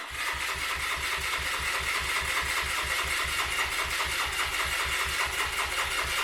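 Bullit Hunt 125's single-cylinder four-stroke engine being cranked over on the electric starter, a steady even pulsing of about eight beats a second that starts suddenly.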